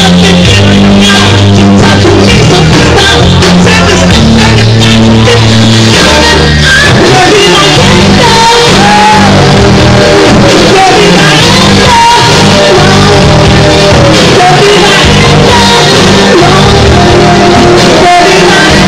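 Loud live rock music played through a venue's sound system, with a repeating bass line and a man singing over it.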